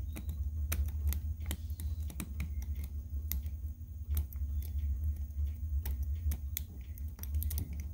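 Hobby knife blade picking and scraping at the pins of an aviation connector to clear old wire and solder: irregular sharp little clicks, a few a second, over a steady low hum.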